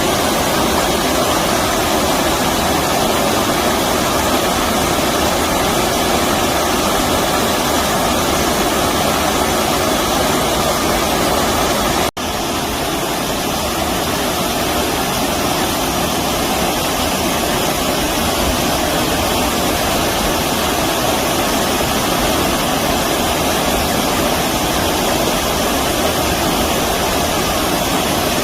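Stream water rushing steadily over rapids, a constant loud rush. It cuts out for an instant about twelve seconds in and then resumes.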